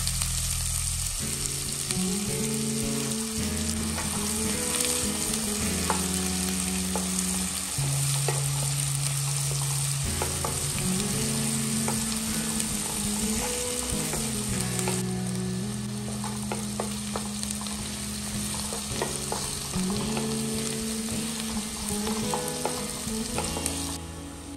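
Food sizzling in hot oil in a pan while a spoon or spatula stirs it, with scattered clicks of the utensil against the pan. The sizzle is louder in the first half.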